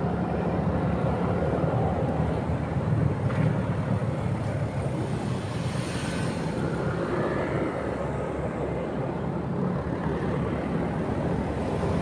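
Motorcycle on the move: its engine running steadily under continuous wind and road noise, with a brief swell of hiss about halfway through.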